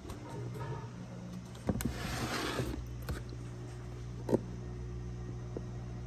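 Steady low hum of a small motor, with a brief rustle about two seconds in and a couple of light knocks in a plastic tub.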